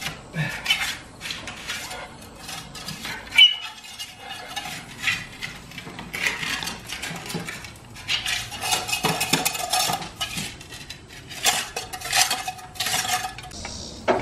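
A metal hand tool scraping and chipping out crumbly concrete and mortar that had not had time to cure: repeated gritty scrapes and metallic clinks, with one sharp knock about three and a half seconds in.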